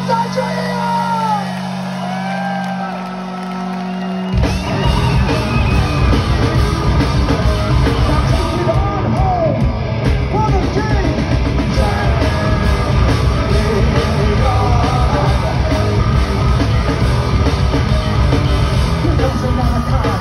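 Funk-metal band playing live. For about the first four seconds a low note rings while the singer yells over it. Then the full band crashes in, with drums, bass and distorted guitars playing fast and loud under more yelled vocals.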